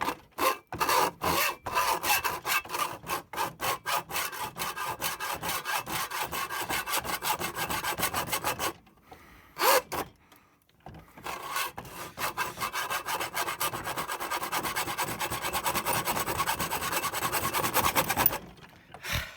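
Hand saw cutting back and forth through a router's thick plastic case in quick rhythmic strokes. It pauses for about two seconds around halfway, with a single stroke in the gap, then resumes and stops shortly before the end.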